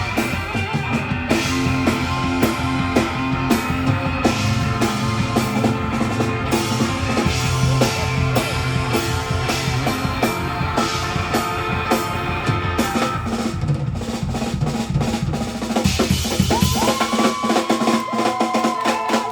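Live country band playing an instrumental passage, drum kit to the fore with kick and snare. About three-quarters of the way in the drums and bass drop away, leaving several long held notes that bend in pitch.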